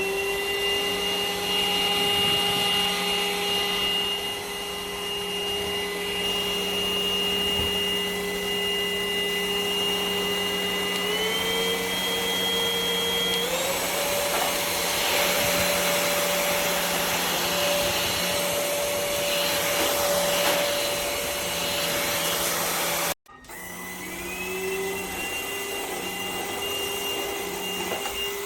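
OIRFND cordless stick vacuum running with a steady motor whine. Its pitch steps up twice, as the power setting is raised. About 23 seconds in it cuts off abruptly, then spins up again and steps up once more near the end.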